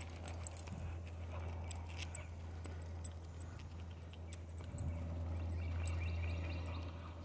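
Light, irregular clicks and jingling, like metal hardware or keys, while walking on a paved road, over a steady low rumble.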